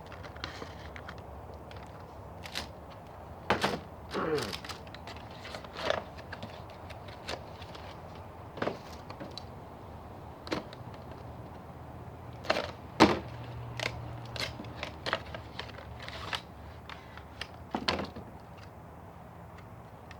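Hands handling a HeroClix booster pack and its plastic figures and cards: scattered irregular clicks, taps and rustles of packaging, with one louder knock about thirteen seconds in.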